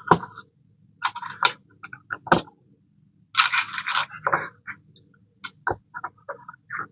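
Plastic Lego pieces clicking and rattling as they are handled and snapped together: a string of sharp clicks, with a longer rustling scramble about three and a half seconds in.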